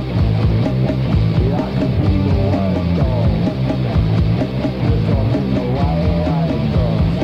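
Punk rock band playing, from a demo cassette: driving electric guitar over bass and drums, with little top end.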